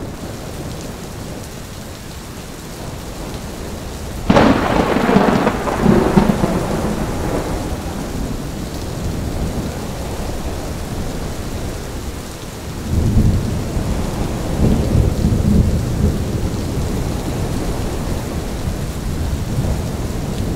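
Steady rain with gusting wind, broken by a sudden sharp thunderclap about four seconds in that rolls away over a few seconds, then a lower, deeper roll of thunder a little past the middle.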